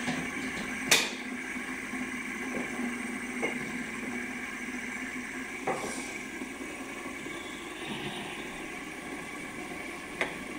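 Stacked metal fidget spinners whirring steadily as they spin down, with a few light clicks of spinners being handled.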